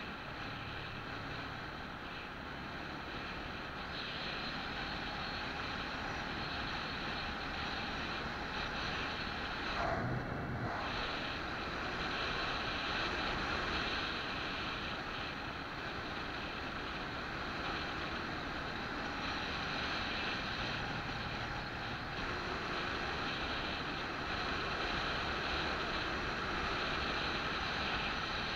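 Steady wind rush and road noise of a vehicle travelling along a paved road, heard through wind buffeting on the microphone. A brief thump about ten seconds in.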